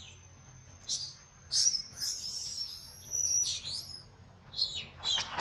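Baby long-tailed macaque giving a series of short, high-pitched squeaky calls, several falling in pitch, the loudest and longest about two seconds in.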